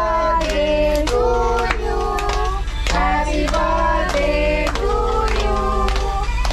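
A small group of family voices, women and a child among them, singing a birthday song together while clapping along in a steady beat.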